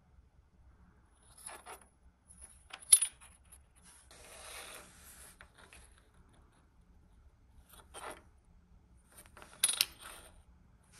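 Small metal pieces clinking against a hard surface: a few separate sharp clicks, the loudest about three seconds in and another near the end, with a brief scraping rub in between.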